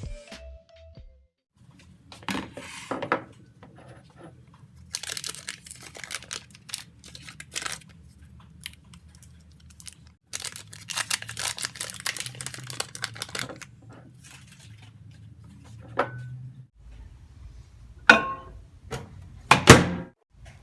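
Wrapping being crinkled and torn in several long bursts over a steady low hum, which stops a few seconds before the end; two sharp knocks follow near the end.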